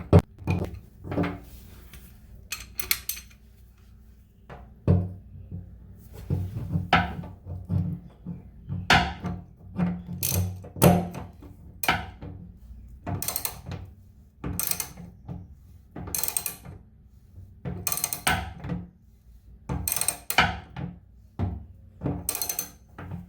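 Short sharp knocks and clatters, roughly one a second and some in quick pairs, from tools and metal and plastic drain parts being worked while a bathtub waste and overflow is fitted.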